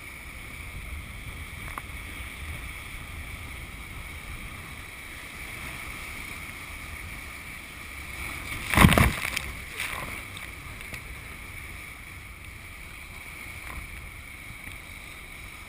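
Steady rush of the Colorado River's high water with wind on the microphone, heard from a boat, and a brief loud crash about nine seconds in.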